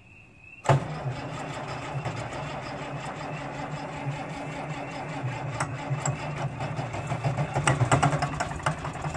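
Farmall 706's D310 six-cylinder diesel being cranked on the starter, cutting in suddenly about a second in and going on steadily with a rapid mechanical clatter that grows busier near the end. It is cranked to bleed air out of the injection lines after the injection pump timing has been reset.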